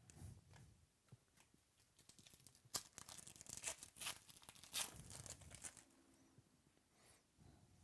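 A trading card pack's foil wrapper being torn open and crinkled, with a run of sharp rips and crackles through the middle few seconds.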